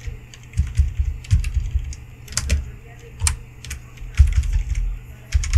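Typing on a computer keyboard: irregular key presses, some in quick runs of clicks, with dull thumps from the keys bottoming out.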